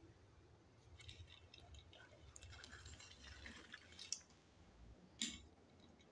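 Faint clicking and light scraping of a small diecast toy pickup truck being handled and rolled by hand, with two sharper clicks about four and five seconds in.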